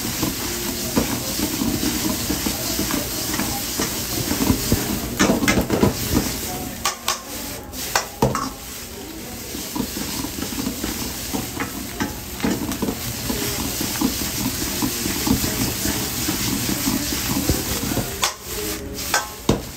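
Noodles stir-frying in a wok: a steady sizzle, with a metal ladle scraping and clanking against the wok as it tosses them, the sharpest clanks coming in runs about a quarter of the way in and again near the end.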